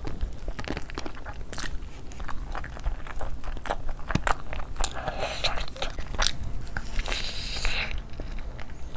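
Close-miked biting and chewing of roasted leg of mutton eaten by hand: a steady run of short wet mouth clicks and smacks, with denser bouts of chewing noise about five seconds in and again near the end.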